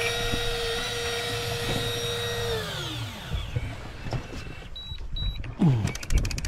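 A small electric motor runs with a steady whine, then slows, its pitch sliding down, and stops about three seconds in. About five seconds in come two short high beeps, then a fast run of clicks.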